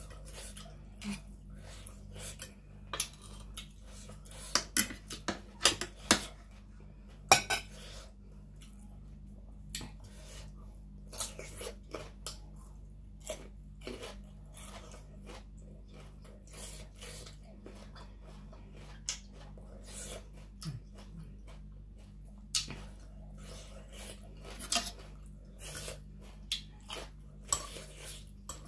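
Metal spoon and fork clicking and scraping against a plate in irregular sharp clinks, with close-up chewing of food in between, over a faint steady low hum.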